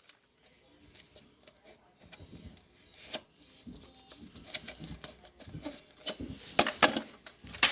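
Scattered plastic clicks and knocks from a Nerf blaster being handled as its foam darts are taken out, busier in the second half.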